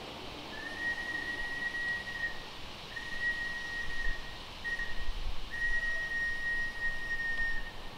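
Model steam locomotive's whistle sounding a single steady note in four blasts, long, long, short, long: the railroad grade-crossing signal.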